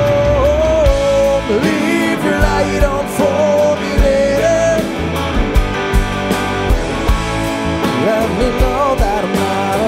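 Live rock band playing drums, bass guitar and electric guitar. A long sung note is held through the first second, then melodic lines bend over a steady drum beat.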